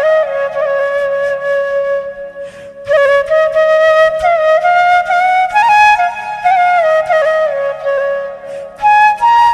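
Background music: a solo flute plays a slow melody that glides between held notes over a steady low drone. The phrases break off briefly about two and a half seconds in and again near the end.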